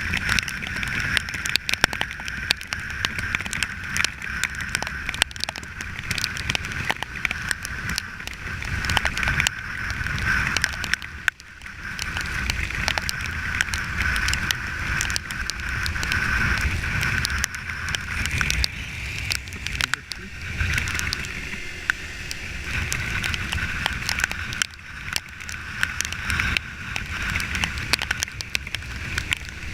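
Riding noise from a Kawasaki Ninja 300 motorcycle: wind rushing over the microphone with the engine running underneath, dipping briefly about eleven seconds in.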